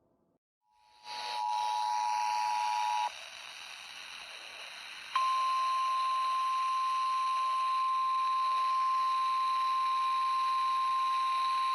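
Emergency Alert System tones over a radio receiver with hiss. First a two-tone attention signal sounds for about two seconds. After a short gap of static, the long steady single-tone warning alarm of NOAA Weather Radio begins about five seconds in.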